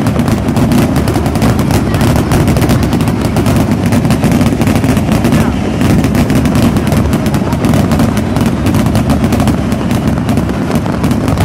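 Fireworks going off close by in a dense, continuous barrage of rapid bangs and crackles, many overlapping without a break.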